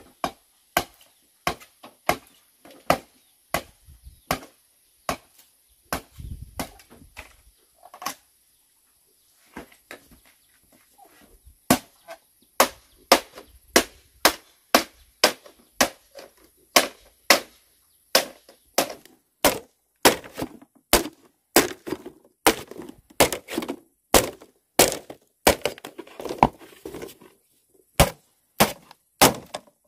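Machete chopping into a green bamboo pole: a run of sharp strokes, a little more than one a second, with a pause of about three seconds about a third of the way in.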